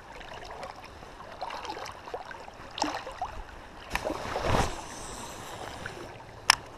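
River water sloshing and lapping around a wading angler's legs, with a few sharp clicks and a louder rush about four and a half seconds in; one short, loud click comes near the end.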